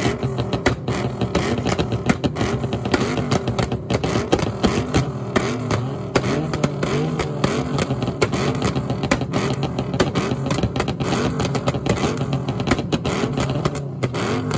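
Modified car engine revved again and again, its pitch rising and falling, with a steady stream of crackles and pops from the exhaust. About halfway through, the revs are held steadier for several seconds.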